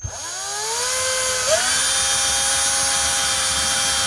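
Cordless drill boring a 1/4-inch hole into a PVC sink drain pipe. The motor whine climbs in pitch over the first second and a half as the drill spins up, then holds a steady pitch.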